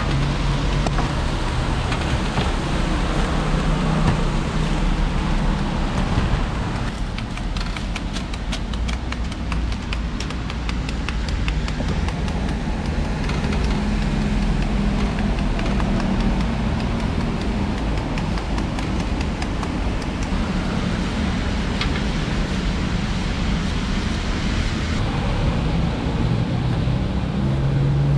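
Road traffic running steadily beside a fruit cart, with a run of quick, light knife strokes on a cutting board for several seconds about a quarter of the way in.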